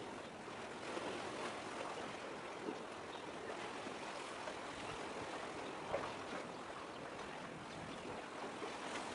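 Small sea waves washing and trickling among concrete breakwater tetrapods, a steady wash.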